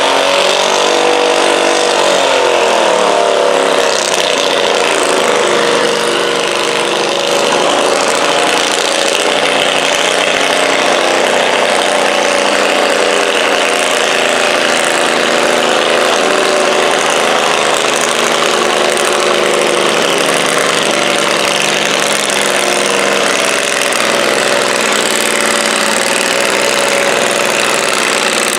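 Stock altered garden tractor engine running hard under load as it pulls a 1000 lb-class weight sled, its pitch sagging and rising again as the load changes.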